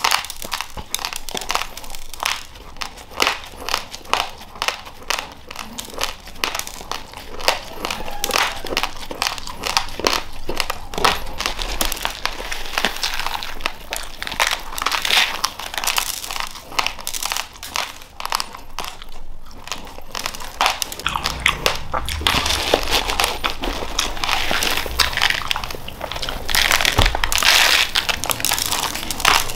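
Raw uncooked rice being crunched and chewed, a dense run of rapid crackling grain-cracks, mixed with the crinkle of the plastic bag and the rustle of grains as a hand scoops them out.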